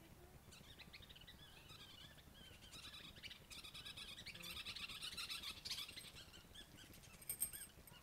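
Small birds chirping and twittering, faint, in quick runs of short high notes that are busiest in the middle, with a short sharp click near the end.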